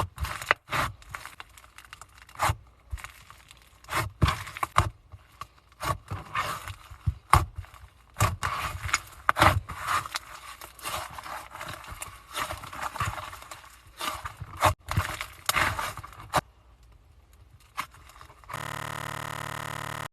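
Slime being squeezed and pressed by hand, giving irregular sharp pops and crackles with sticky tearing sounds. Near the end the handling stops and a steady buzzing tone starts.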